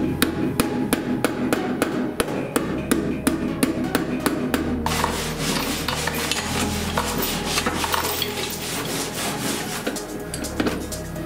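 Hand hammer striking the bare steel sill of a car body in steady blows, about three a second, for roughly the first five seconds, followed by less regular metal knocking and clatter.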